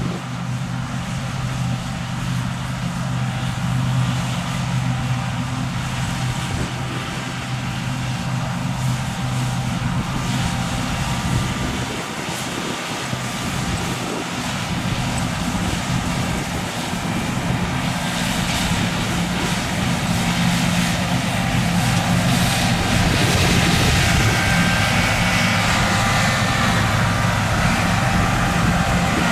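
Fendt 6275 L combine harvester running steadily while harvesting: an even engine hum with the rushing noise of the threshing machinery over it, growing louder about two-thirds of the way through.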